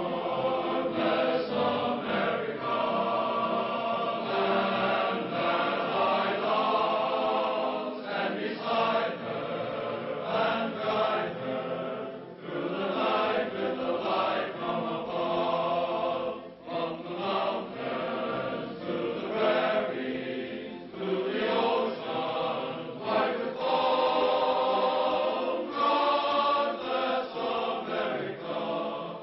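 Choir singing in sustained chords, with short breaks between phrases.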